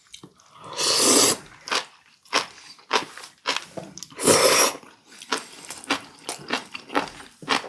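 Close-up chewing of crunchy warty sea squirt: wet crunches, mouth clicks and smacks, with two louder breathy bursts, about one second and four and a half seconds in.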